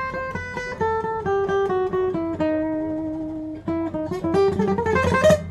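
Gibson SJ200 acoustic guitar with old strings, played as a melody of single picked notes stepping downward. A low note is held for about a second around the middle, then a quicker run of notes and strums follows near the end.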